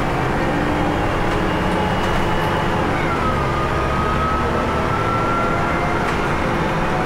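Steady engine and road noise inside a moving bus, with a whining tone that drops about three seconds in and then slowly rises.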